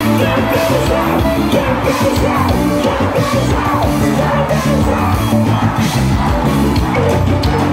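A live gospel band playing loudly through a stage sound system, with singing and a large crowd yelling and cheering along.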